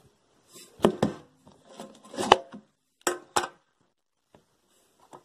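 Handling noises of a plastic slime tub: several short knocks and clacks in small clusters about a second apart.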